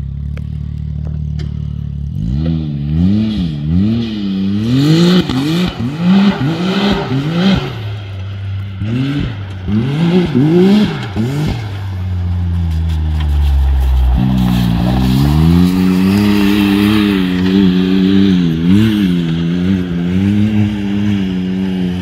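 2020 Can-Am Maverick X3's turbocharged three-cylinder engine heard through an Assassins full exhaust with quiet core. It runs low and steady at first. About two seconds in it breaks into a string of quick throttle revs, rising and falling roughly once a second. Near the middle it settles into steadier, higher running with small swings in pitch.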